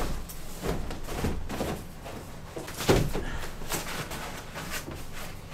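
Foam sleeping pads being unrolled and laid out on a wooden bunk: irregular rustling and handling noises with a few dull knocks, the loudest about three seconds in.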